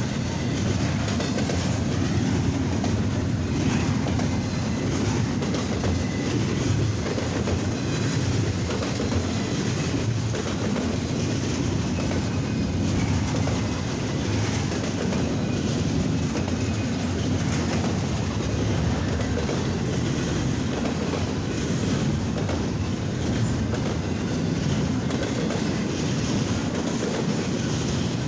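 Double-stack intermodal container cars of a long CSX freight train rolling past close by: a steady rumble and clatter of steel wheels on the rails.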